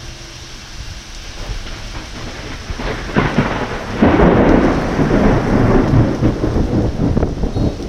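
Thunder over steady heavy rain: a crack breaks about three seconds in, turns louder a second later, and rolls on in a long rumble.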